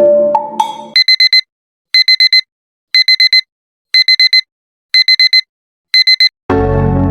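Digital alarm beeping: quick runs of four high beeps, repeated about once a second, six times. Soft music fades out at the start, and electronic music comes in near the end.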